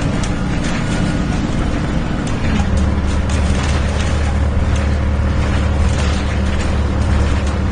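MAN-engined Alexander Dennis Enviro 300 bus running under way, its engine note dropping to a deeper, steadier drone about two and a half seconds in, with light clicks throughout.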